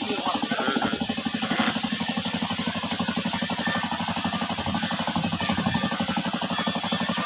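An engine running steadily with a fast, even chugging, over a constant hiss.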